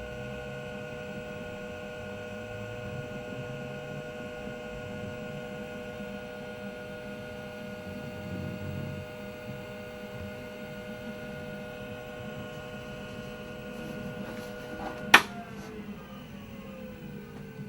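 1986 computer running with a steady electrical hum and whine from its fan and drive motors. About fifteen seconds in comes one sharp click, after which the whine stops and falling tones follow as the motors spin down.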